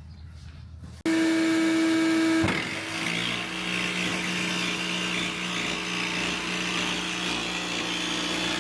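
Power drill starting about a second in and spinning at a steady high pitch, then about a second and a half later biting into the van's sheet-metal body, dropping in pitch and running steadily under load while drilling through.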